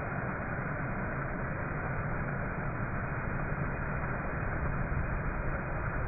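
Waterfall pouring onto rock, a steady rushing of falling water.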